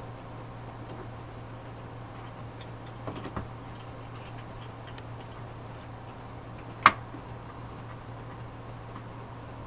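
A few sharp, isolated clicks and taps of a screwdriver and screw against an Intel CPU cooler's mounting while a screw is worked to get it started, the loudest about seven seconds in, over a steady low hum.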